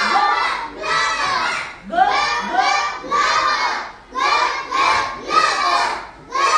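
Young children's voices calling out together in chorus, one group call about every second, each rising and falling in pitch, as a class chants after its teacher.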